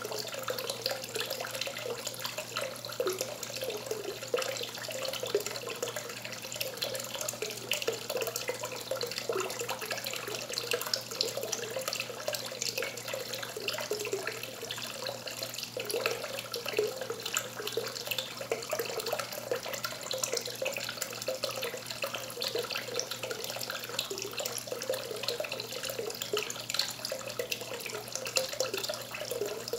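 A thin stream of water from a pipe spout pouring steadily into a goldfish pool, a continuous splashing trickle full of small irregular plinks.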